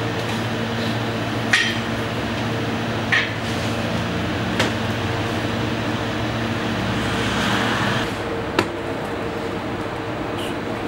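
Sharp knocks, three about a second and a half apart and one more after a short rushing swell, over a steady low machine hum.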